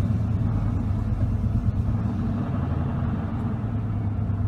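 GM 5.7-litre TBI small-block V8 idling steadily at about 1,150 rpm just after starting, at a fast idle with warm-up enrichment still active.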